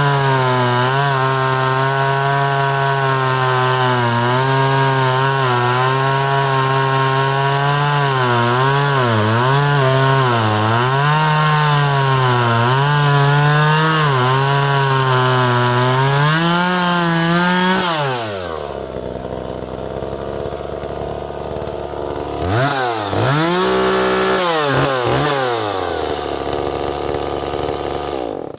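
Small 30 cc Echo two-stroke chainsaw cutting oak under load, its engine pitch sagging and recovering as it bites. About eighteen seconds in it drops off to idle, then is blipped up and down twice before idling again.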